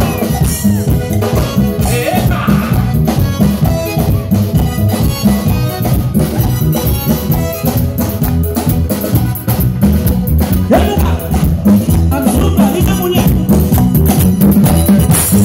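Live band music played loud through stage PA speakers: a steady, fast percussion beat with drums and bass, and singing voices now and then.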